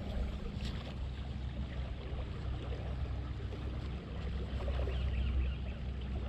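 Wind buffeting the microphone, a steady low rumble that grows louder about five seconds in, with light rustling of gloved hands handling fishing line close by.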